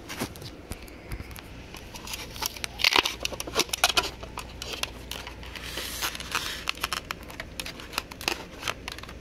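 Handling noise from a handheld recording device being picked up and repositioned: irregular crinkling, rubbing and small clicks, loudest about three seconds in.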